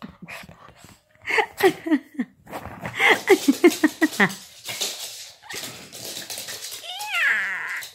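A Yorkshire terrier and a cat play-fighting, with quick series of short pitched animal cries and grumbles from about a second in. Near the end comes one drawn-out cat meow that rises and falls.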